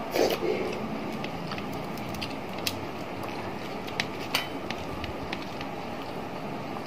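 Eating rice by hand from a steel plate: a short louder sound just after the start, then a few light clicks as fingers and rings touch the plate, over a steady background noise.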